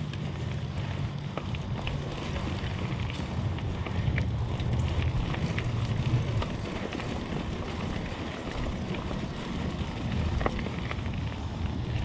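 Diamondback Atroz 3 mountain bike rolling fast down a dirt singletrack: steady tyre and wind rumble on the camera microphone, with scattered short ticks and rattles from the bike.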